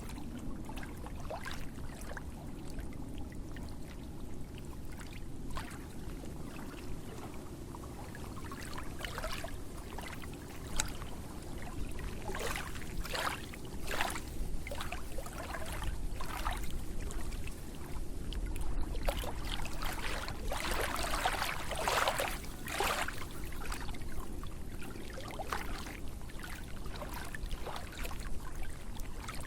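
Water splashing and trickling: irregular small splashes over a low, steady rush, with the splashes coming thicker past the middle.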